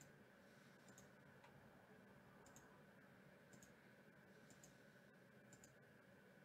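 Faint computer-mouse button clicks, each a quick press-and-release pair, coming about once a second over a faint steady hum.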